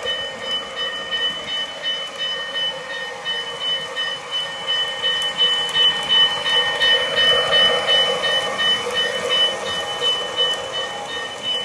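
Menards Gen II Santa Fe O-gauge diesel model locomotive running with Lionel passenger coaches on three-rail track: a steady high motor whine over the continuous rumble of wheels rolling on the rails. The rumble swells for a few seconds partway through as the train passes close.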